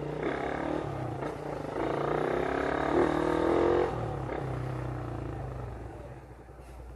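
Motorcycle engine running, getting louder and higher about two seconds in as it accelerates, then easing off after about four seconds.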